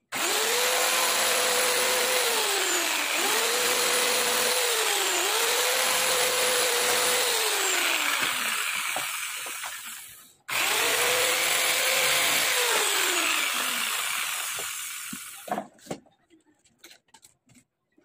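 Handheld electric power tool running in two stretches: about ten seconds, a brief stop, then about five seconds more before it winds down. Its motor pitch sags and recovers every couple of seconds.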